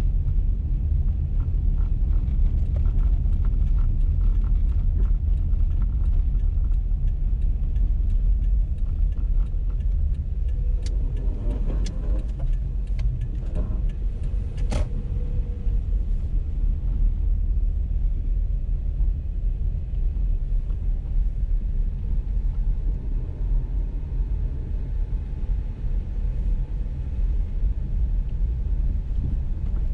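A car driving, heard inside the cabin: a steady low rumble of engine and tyre noise from the road. A few sharp clicks and knocks come about halfway through.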